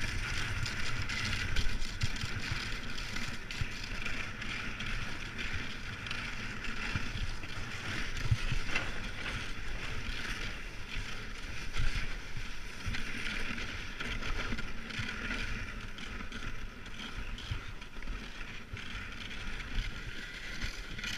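A snow windsurfing board (windski) hissing and scraping over crusty snow while under sail, with wind buffeting the microphone and a few bumps over the snow surface.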